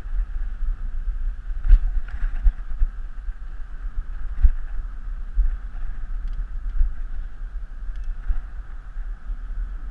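Wind rumbling on the microphone of a camera riding on a moving bicycle, with steady rolling noise from the tyres on the paved path. A few sharp knocks stand out, the loudest a little under two seconds in and again about four and a half seconds in.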